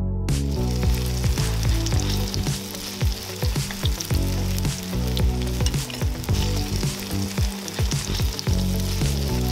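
Okonomiyaki batter of cabbage and egg sizzling in hot oil in a frying pan; the sizzle starts just after the beginning, with background music playing low underneath.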